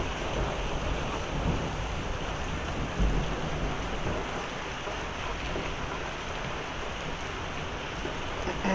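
Heavy rain falling steadily during a thunderstorm, with a brief low rumble about three seconds in.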